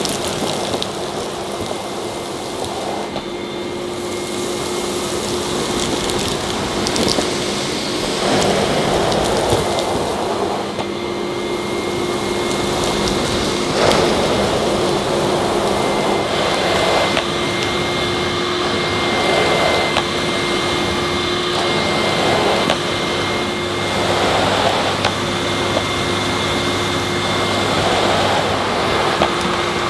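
Miele S228i cylinder vacuum cleaner running with a steady motor whine while its floor head is pushed back and forth over carpet, picking up scattered oats and sand. The suction noise swells with each stroke, every couple of seconds.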